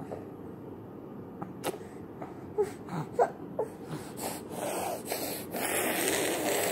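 A toddler's short snorts and sniffs through a runny nose, a few in quick succession, then a couple of seconds of steady rubbing noise on the phone's microphone as a hand grabs at it.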